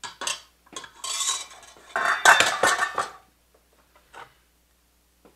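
Metal kitchenware clattering and clinking: a stainless-steel ladle and pots being handled on the stove. The clatter is loudest about two to three seconds in, followed by a couple of light knocks.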